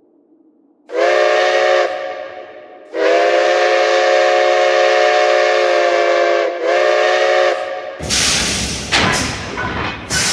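A whistle sounding a chord of several tones in three blasts, short, long, then short, each dipping in pitch as it stops. From about eight seconds a loud rushing noise with sharp knocks takes over.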